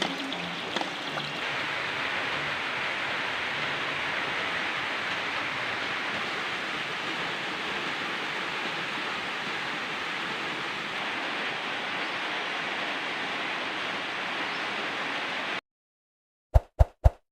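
Heavy rain falling steadily, a dense even hiss with a few drips early on. The rain cuts off abruptly near the end, and three short, sharp pops follow in quick succession.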